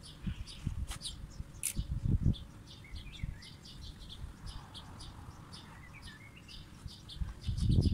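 Small birds chirping, many short high chirps with a few quick falling notes. There are a couple of low rustling bumps about two seconds in and near the end.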